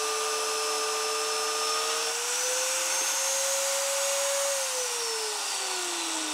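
VEVOR magnetic drill's motor running steadily through rusty steel. It speeds up slightly about two seconds in, then from about four and a half seconds in it is switched off and winds down, its pitch falling steadily.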